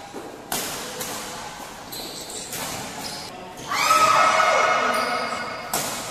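Badminton rally in a large hall: three sharp racket hits on the shuttlecock, spaced a couple of seconds apart and echoing. A loud, drawn-out high-pitched sound about four seconds in, sliding down in pitch over a second and a half, is the loudest thing.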